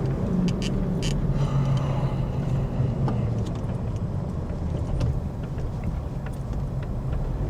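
A steady low rumble like a running vehicle, with a low hum through the first few seconds and a few faint clicks.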